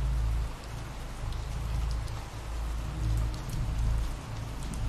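Steady rain falling, with fine scattered drop ticks, over a low rumble that swells and fades every second or so.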